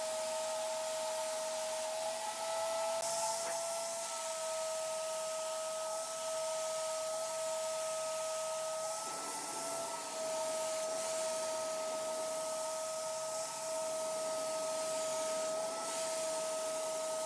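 A power tool running steadily: a constant motor whine over a rubbing, sanding hiss, the hiss changing slightly about three and nine seconds in.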